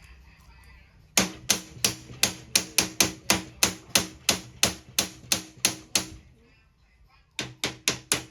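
Hammer blows on a copper bar being shaped by hand, about three strikes a second with a short metallic ring each. After a pause of about a second, a second quick run of blows starts near the end.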